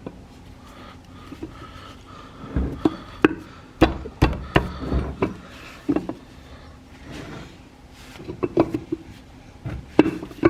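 Irregular knocks and clicks of a differential cover being worked onto its housing and seated over the dowel pin, metal tapping against metal, with a few clusters of quick knocks.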